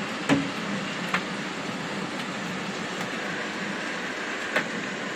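Hail falling on rooftops and ledges, a steady hiss broken by three sharp ticks of hailstones striking close by, the loudest about a third of a second in.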